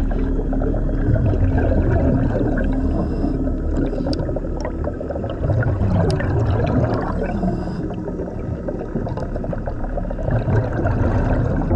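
A diver's exhaled air bubbling and gurgling underwater, a dense continuous crackle. A steady low hum runs through the first second or so and comes back near the end.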